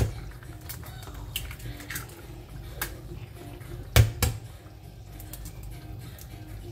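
An egg is knocked against the rim of a metal frying pan, two sharp taps about four seconds in, with fainter clicks of eggshell being handled. A low steady hum runs underneath.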